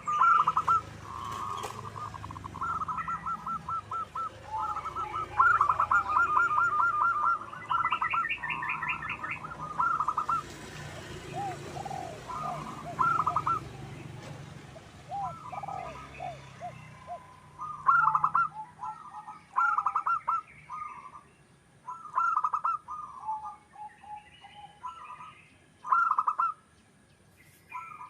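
Zebra doves (perkutut) cooing in phrases of quick, staccato notes, repeated again and again, with higher chirps from another bird at times.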